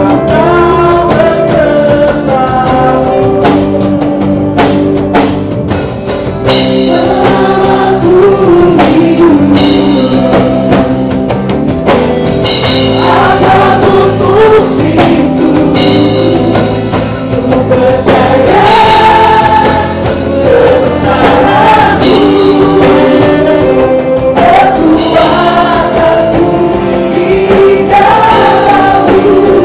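Indonesian Christian worship song: voices singing a melody together over band accompaniment with regular drum hits.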